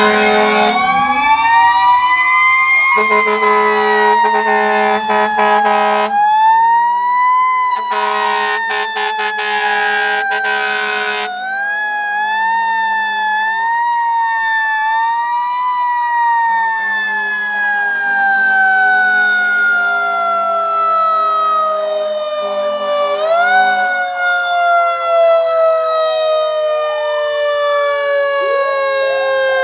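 Federal Q2B electromechanical siren wailing: its pitch winds up and coasts down several times, then slides slowly down near the end as the rotor spins down. A Grover 1510 air horn sounds over it in three steady-pitched blasts, the second the loudest.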